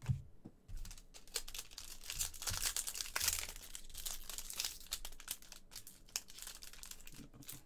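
Foil wrapper of a trading card pack being torn open and crinkled by hand: a dense crackle that is busiest in the first half, then thins out.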